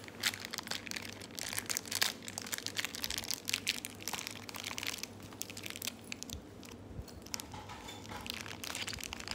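Clear plastic wrapper crinkling and crackling as hands work it open, a dense run of crackles that thins out about halfway through.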